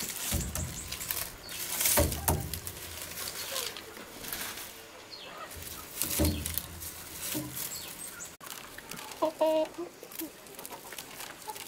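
Dry corn husks rustling and cobs knocking as ears of dried corn are handled and hung on a bamboo rack, a few separate knocks. A hen clucks briefly about nine seconds in.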